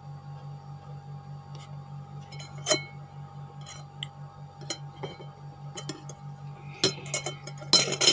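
A few sharp clinks of a plate being handled as food is picked off it by hand, the loudest near the end, over a steady low hum.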